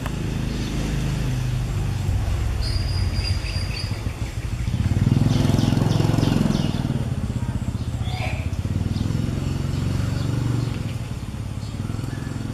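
A motor vehicle engine running steadily, swelling louder about five seconds in and easing off again after about seven seconds, with short high chirps over it.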